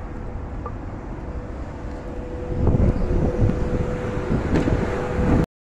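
Wind buffeting a phone's microphone, a dense low rumble with a steady faint hum beneath; it grows louder about two and a half seconds in and cuts off abruptly just before the end.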